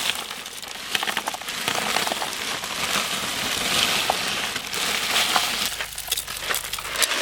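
Ice and rock salt crunching and rattling as they are packed around the canister of a hand-crank ice cream maker.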